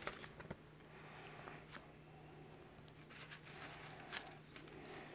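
Faint handling noise of a paper brochure and a foam cover sheet: a light rustle with a few small scattered ticks and taps.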